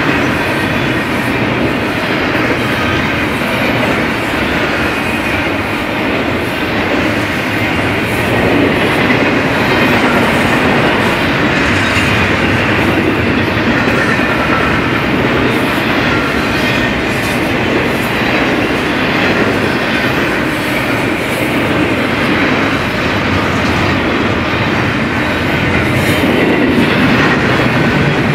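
Double-stack intermodal freight train's loaded well cars rolling past: the steady noise of steel wheels running on rail, with faint occasional clicks.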